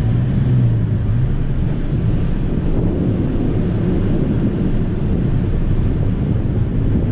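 Steady low rumble of wind buffeting the microphone of a GoPro mounted outside on a pickup truck's windshield, with the truck moving slowly underneath.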